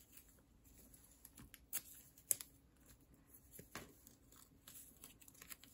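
Faint rustling and scattered light taps of paper cards being picked up, shuffled and set down on a tabletop. A few sharper taps stand out about two seconds in.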